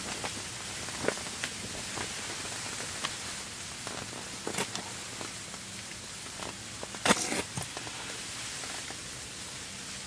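Steady hiss of a snowstorm, with scattered clicks and knocks from handling fishing gear. The loudest cluster of knocks comes about seven seconds in.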